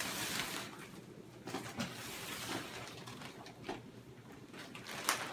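Faint rustling and crinkling of thin plastic wrap being handled and pulled off a mattress, with a few slightly louder crinkles.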